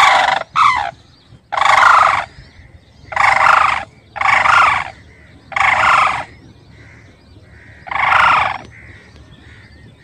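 Sarus cranes calling as they take off and fly: about seven loud trumpeting calls, each under a second long, coming roughly once a second with a longer pause before the last one.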